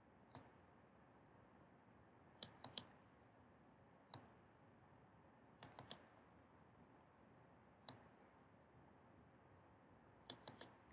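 Faint computer mouse button clicks over near silence, sometimes single and sometimes in quick runs of two or three, a second or two apart.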